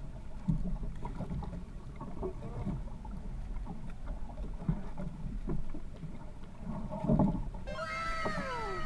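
Handling knocks and thumps in a small outrigger fishing boat as a handline is hauled in by hand, over a low rumble of wind and sea; the loudest knock comes about seven seconds in. Near the end several whistle-like tones start, each gliding downward in pitch.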